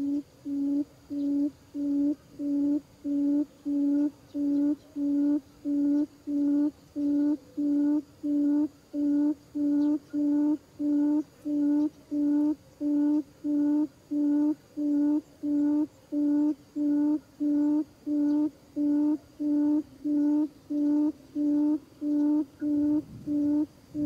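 Buttonquail lure call: a long, even series of low hooting notes, about three every two seconds, played as bait to draw wild quail into a trap.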